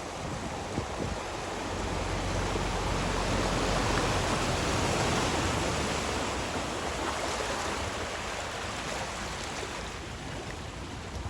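Floodwater rushing and splashing around a vehicle driving through it, over a low rumble. The rush swells to its loudest about halfway and eases off again.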